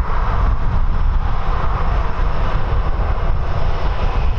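A Boeing 737-800's jet engines running at taxi power as it turns on the wet pavement: a steady rushing noise over a deep rumble.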